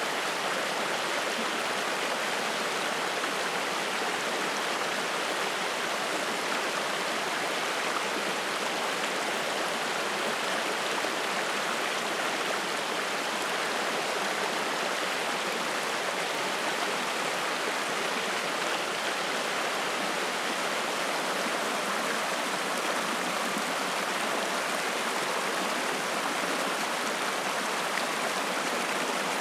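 Mountain stream of spring water rushing and splashing over rocks, a steady, even rush.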